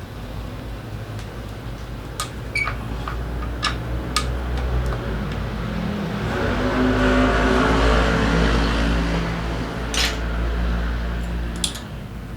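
Several light metallic clinks of parts being handled, over a steady machine hum. About halfway through, a louder motor hum swells up and fades again a few seconds later.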